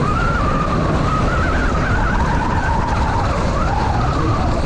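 Mountain bike descending at speed: steady wind and tyre noise, with a whine that rises and falls in pitch.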